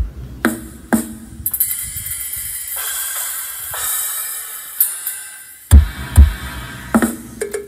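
Electronic dance music with drum-machine beats played loud through 15-inch JB15 subwoofer cabinets. Deep bass kicks start it off, then the bass drops out for a few seconds under a high hissing sweep. The heavy kicks come back about six seconds in.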